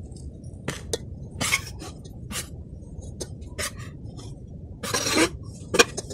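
Metal spoon scraping and clinking against steel bowls as rice flour is pushed out of one bowl into a steel pot. It makes a string of sharp clinks, about one a second, with a longer scrape about five seconds in.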